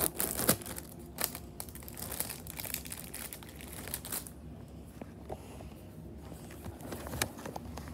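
Plastic packaging crinkling and rustling in the hand, with a few handling clicks. It is densest for about the first second and a half, then thins to faint scattered rustles.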